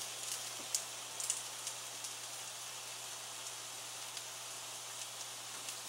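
Cube steaks frying in a skillet: a low, steady sizzle with a few faint crackles.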